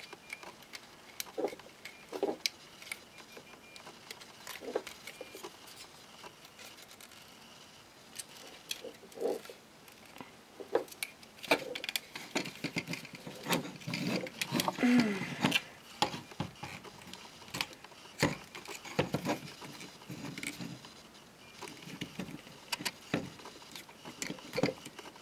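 Plastic parts of a Transformers Generations Jetfire action figure clicking and rattling as they are twisted and folded by hand. The clicks are scattered, with a busier run of handling noise about fourteen to sixteen seconds in.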